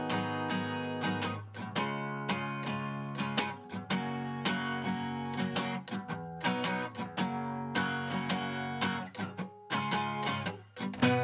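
Acoustic guitar strummed in chords, with a stroke every fraction of a second and the notes ringing on between strokes.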